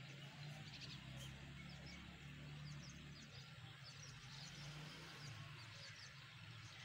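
Faint outdoor ambience: scattered thin chirps of small birds over a low, steady hum.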